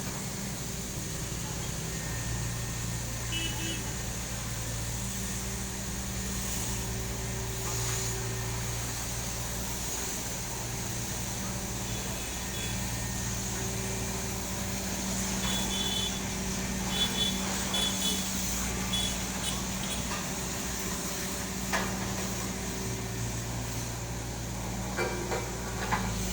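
Road roller's diesel engine running steadily, with a few short high-pitched beeps partway through.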